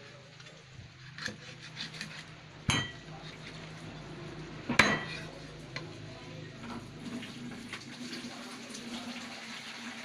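A large kitchen knife chopping boiled duck on a round wooden chopping board: a few sharp chops with a short ringing, the loudest about five seconds in, then lighter taps.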